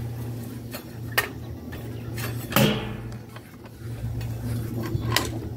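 A few sharp clinks and knocks of cookware being handled, the loudest about two and a half seconds in with a short ring after it, over a steady low hum.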